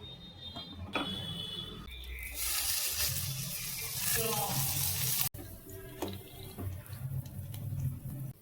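Running water, loud and even for about three seconds, cutting off abruptly a little past the middle, over faint background music.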